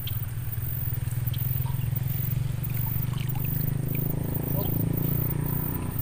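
A motor running steadily at a low pitch, a little stronger in the second half, with short faint chirps and a high, pulsing buzz above it.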